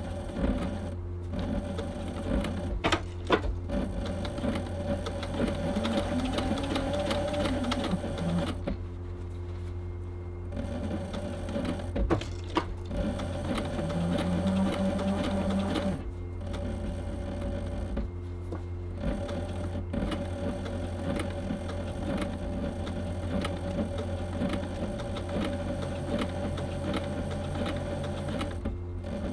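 Cobra Class 3 leather sewing machine (harness stitcher) stitching through thick vegetable-tanned leather, a rapid steady run of needle strokes over a constant motor hum. The stitching stops briefly several times while the motor hum carries on.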